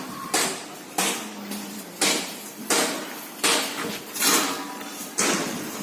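Hammer blows on metal, struck over and over at a little over one a second, each with a brief ring.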